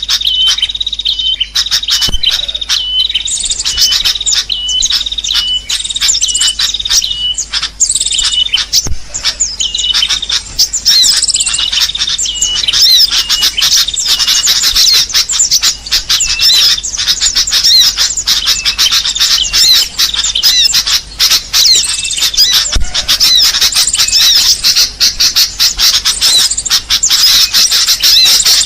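Bird-luring recording: a dense chorus of small birds chirping and calling rapidly, high-pitched, with a run of repeated short calls early on that thickens into a busier, overlapping chatter partway through.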